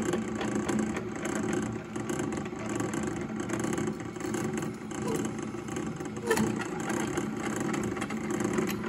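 Powermatic floor drill press running with a steady motor and spindle hum as the bit is fed down into an oiled metal block held in a vise. A brief sharp click about six seconds in.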